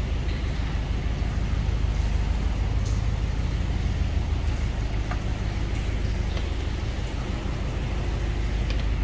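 Narrowboat's diesel engine running steadily at cruising speed inside a brick canal tunnel, with a few faint ticks scattered through it.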